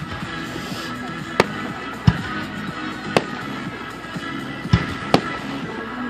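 Fireworks going off: about half a dozen sharp bangs at uneven intervals, over steady background music.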